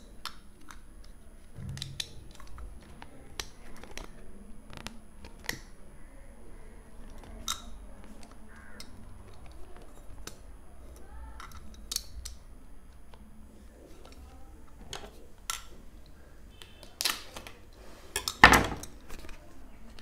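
A metal retractable utility knife and its card packaging being handled: scattered sharp clicks and light rustling of the card, with two louder knocks near the end.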